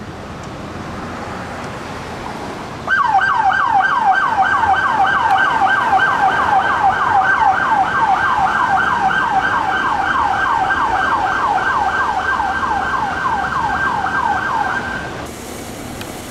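Emergency vehicle's electronic siren in a fast yelp, about three sweeps a second, starting suddenly about three seconds in and cutting off about a second before the end, over road traffic noise.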